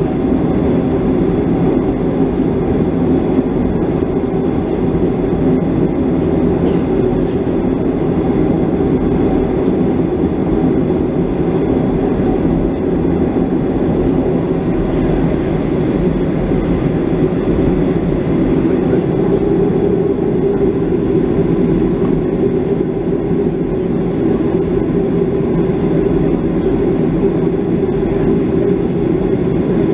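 Cabin noise of a Boeing 737-500 taxiing, its CFM56-3 engines at low taxi power: a steady, even rumble with a faint hum, with no spool-up.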